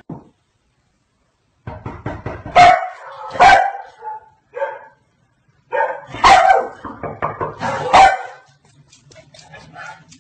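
A dog barking, a series of loud separate barks in two bunches that begin about two seconds in.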